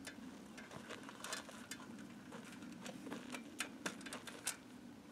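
Faint, irregular clicks and light taps, a few sharper ones in the second half, from handling tie-down strap buckles and a light aluminium ladder frame resting on a kayak trolley.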